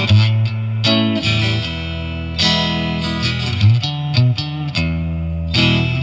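Electric guitar riffs played clean through an amp, with a mix of picked single notes and chords, some left ringing. The guitar's neck single-coil pickup, a DiMarzio Area 58, goes through a DIY Tonemender EQ/boost pedal that is switched on.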